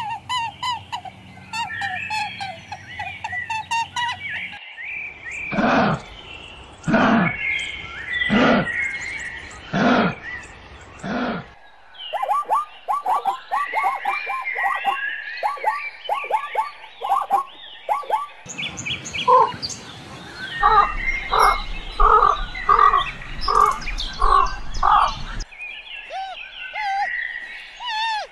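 Birds calling, in several short cuts. First comes twittering, then five loud calls about a second and a half apart, then quick chirping, then a steady run of short, evenly spaced calls, and chirping again near the end.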